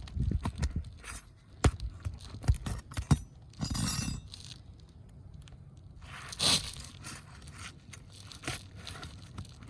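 Roofing nails being pried out of asphalt shingles, the shingles scraping and tearing as they are worked loose. It starts with a cluster of sharp knocks, followed by two longer scraping sounds.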